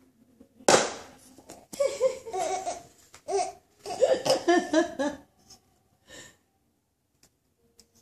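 A baby laughing: a sharp breathy burst about a second in, then a run of short, high-pitched giggles that stops about five seconds in.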